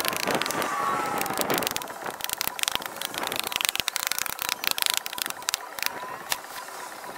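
Rapid clatter of hammer blows and lumber knocking as a shed wall panel is taken apart, busiest early on and thinning out after about five seconds.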